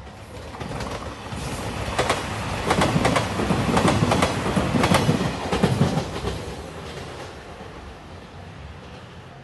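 A JR 2700 series diesel limited express train passing at speed. The wheels clack sharply over the rail joints, and the noise swells to a peak in the middle, then fades away.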